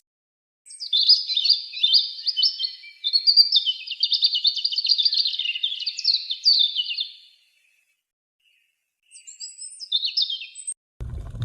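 A small songbird singing a long, fast twittering warble, then a shorter burst after a pause of about two seconds.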